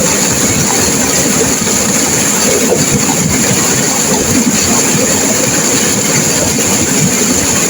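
Turbulent river water rushing and crashing, a loud steady wash of noise with no letup.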